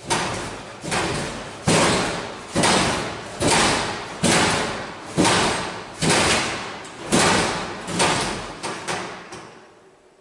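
A series of loud bangs, about one a second, each ringing on in a long echo down a hard-floored school corridor; near the end the last few come quicker and weaker before stopping.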